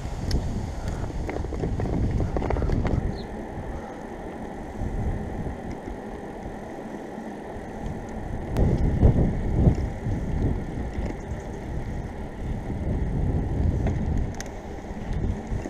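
Wind buffeting the microphone of a moving bicycle, in gusts that swell and fade, over the low rumble of the tyres on a paved path, with a few light clicks from the bike.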